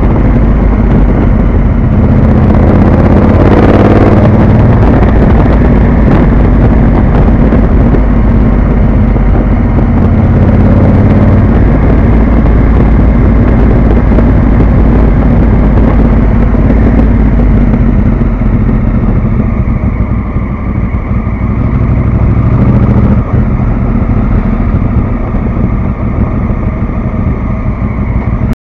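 Honda Africa Twin CRF1000L's parallel-twin engine running through a Beowulf aftermarket exhaust while riding. The exhaust note swells to its loudest about four seconds in and drops off somewhat near the end as the bike slows.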